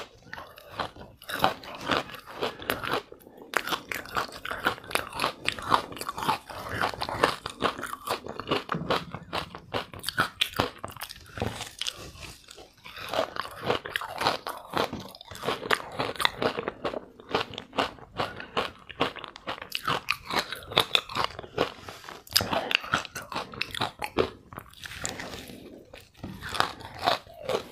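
Close-miked biting and chewing of green-coloured freezer frost ice: a dense, continuous run of crisp crunches, many a second.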